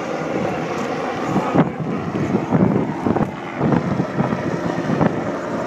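Helicopter flying past at a distance, its rotor and engine a steady drone. From about a second and a half in, wind buffets the microphone in irregular low gusts.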